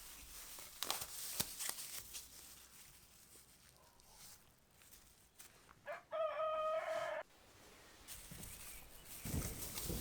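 A single drawn-out bird call lasting about a second, about six seconds in, with a few faint clicks and knocks earlier.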